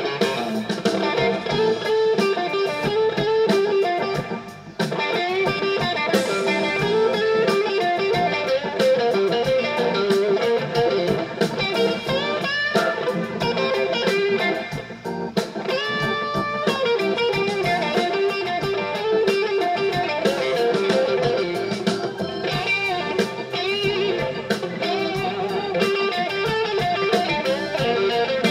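Live blues band playing an instrumental passage, with electric guitar over bass, drums and keyboard. The guitar bends notes, most clearly twice in the middle of the passage.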